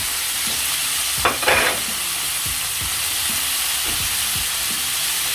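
Garlic and onion sizzling in oil in a frying pan while being stirred, a steady hiss with light taps, and a brief louder rasp about a second in.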